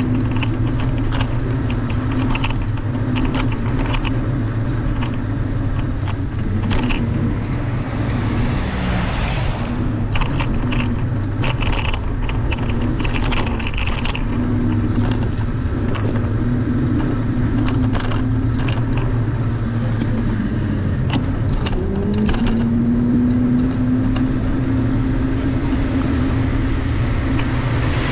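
Car being driven slowly along a city street: a steady low engine and road rumble with scattered light clicks and rattles, and the engine note rising a little about two-thirds of the way through. Twice a passing vehicle adds a brief swelling whoosh, the second near the end.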